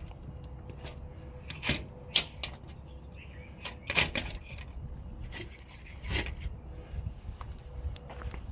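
Scattered light clicks and knocks of handling, a few sharp ones a second or two apart, over a steady low hum.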